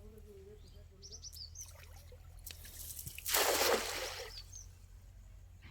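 A rush of splashing, pouring water that builds up, is loudest about the middle, and dies away within two seconds, with a few bird chirps just before it.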